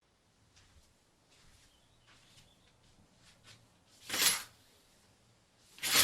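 Near silence with a few faint ticks, then two short whooshes of noise, each under half a second, about two seconds apart.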